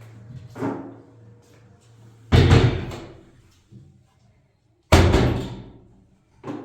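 Two loud, heavy bangs about two and a half seconds apart, each dying away over about a second, with a lighter knock near the start.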